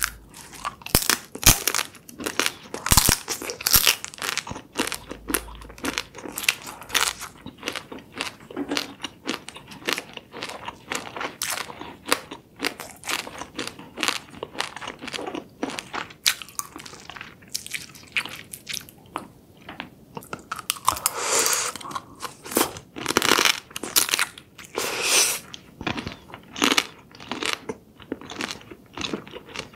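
Close-miked eating of spicy seafood: crunchy bites into crab and shrimp shell and meat, with chewing, as a dense run of sharp crackles. In the second half come a few longer sucking, slurping sounds as meat is drawn from the shell.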